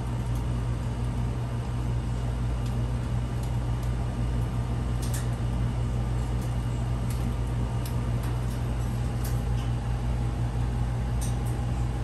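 Steady low hum of a running household machine, with a few faint light clicks.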